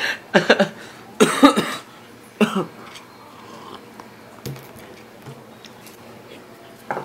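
A man coughing three times in quick succession, followed by a few faint light ticks.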